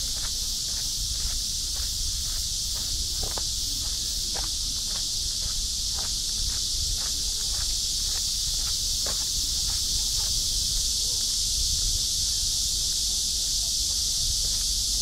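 A steady, high-pitched insect chorus, with a walker's footsteps on the path about twice a second underneath.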